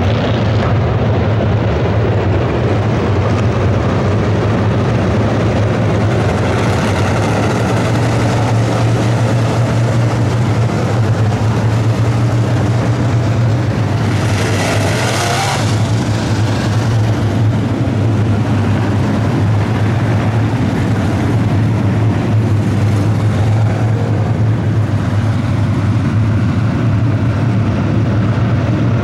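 A field of IMCA Modified dirt-track race cars with V8 engines running at race speed around the oval, a steady loud engine drone. It swells briefly about halfway through.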